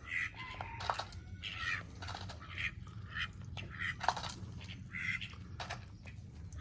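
Call ducks quacking in short, repeated calls, with a few light clicks and taps among them.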